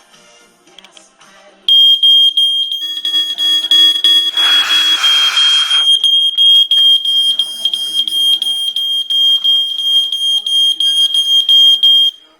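Photoelectric smoke alarm's piezo horn sounding a loud, shrill, steady tone. It sets off about two seconds in and cuts off suddenly near the end, set off by test smoke in its detection chamber. A brief hiss joins it for a second or two in the middle.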